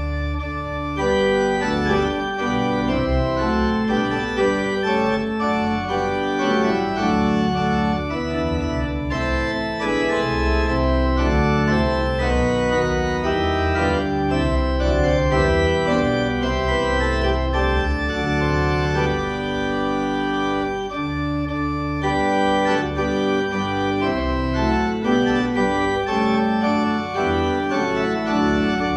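Pipe organ played from a console with manuals and pedalboard: sustained chords that shift every second or so over a strong, deep pedal bass.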